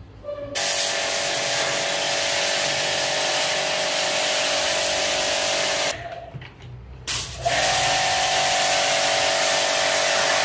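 Pressure washer spraying water to wash out an air-conditioner indoor unit: a loud hiss of spray over a steady motor whine. It cuts out about six seconds in and starts again a second and a half later.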